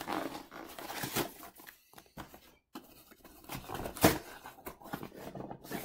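Thin cardboard box being torn open by hand: irregular ripping and crinkling, with the sharpest rip about four seconds in.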